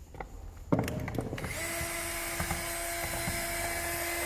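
A small electric power tool, drill-like, running steadily at one speed for about three seconds. A knock comes just before it starts.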